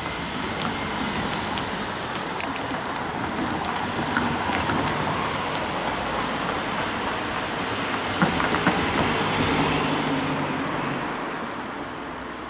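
Electric train passing over a level crossing. Its running noise builds to a peak about two-thirds of the way through, with sharp wheel clacks over the rail joints, then fades toward the end.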